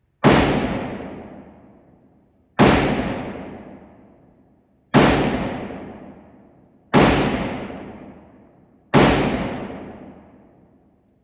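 Five gunshots from a firearm, fired one at a time about two seconds apart, each with a long reverberant tail that dies away before the next.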